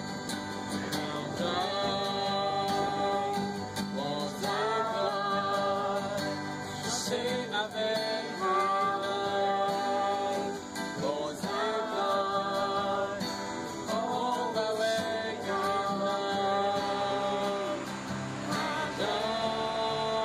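Music with singing over guitar accompaniment, in a gospel style.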